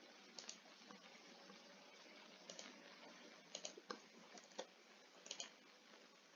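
Faint clicks of a computer mouse and keyboard keys, several coming in quick pairs, over a low steady hiss.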